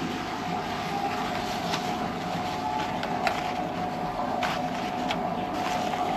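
A steady background rushing noise with a faint constant hum. Over it come a few short crinkles of a blue disposable fabric sheet being spread out by hand.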